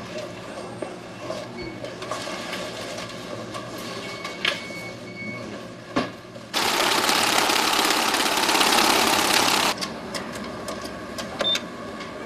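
A machine at a bank counter runs with a loud, fast mechanical rattle for about three seconds in the middle. Near the end a keypad button is pressed with a short electronic beep.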